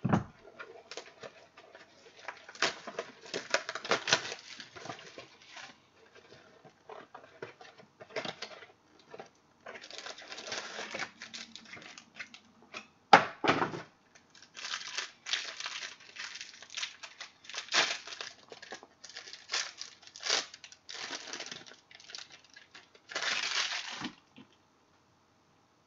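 Plastic wrapping on a box of football trading cards being torn and crinkled open, in irregular bursts of rustling and tearing with one sharp snap about halfway through. It stops shortly before the end.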